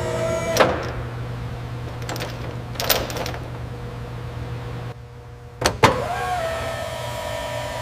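A small electric motor running with a steady whir that briefly drops away about five seconds in, broken by several sharp clicks.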